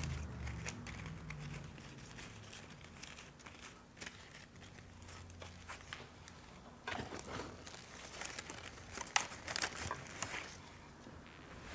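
Leaves and stems of a flower arrangement rustling and crinkling as white ornamental cabbage heads are pushed in among the greenery, in scattered rustles that are busiest about seven seconds in and again between nine and ten seconds.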